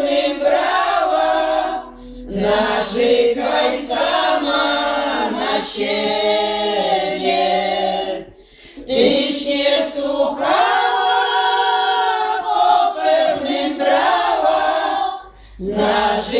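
Group of elderly women singing a Polish folk song together, unaccompanied, in long drawn-out phrases. There are short breaks for breath about two, eight and a half and fifteen seconds in.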